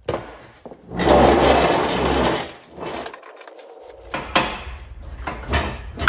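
Metal parts and tools being handled during reassembly: a rubbing, scraping noise for about a second and a half, then a string of knocks and clicks.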